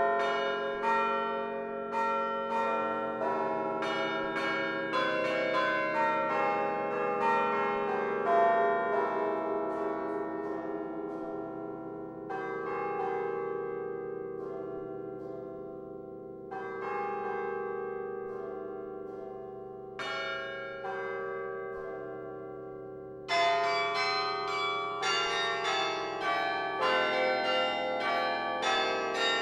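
Bells of the Laura Spelman Rockefeller Memorial Carillon played from its baton keyboard: a quick run of struck notes ringing into one another, then three chords struck about four seconds apart and left to ring out, before fast playing resumes near the end.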